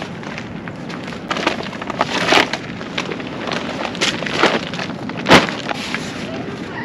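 Irregular sharp knocks and clacks, about seven hits spread over a few seconds, the loudest one about five seconds in, over a steady background hiss.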